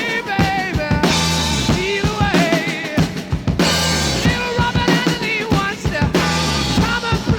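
Background music: a drum kit playing a steady beat with bass notes under a wavering melodic lead line.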